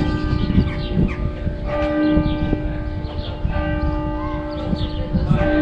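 Church bells ringing, a bell struck about every two seconds, each note ringing on into the next.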